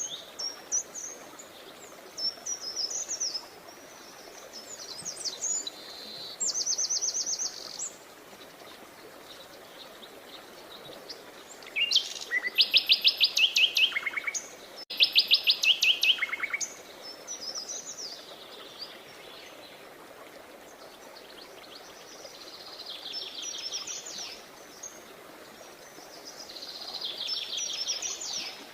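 Songbirds singing: high chirps and fast trills of rapidly repeated notes, the loudest being two strong trilled phrases about twelve and fifteen seconds in, over a faint steady background hiss.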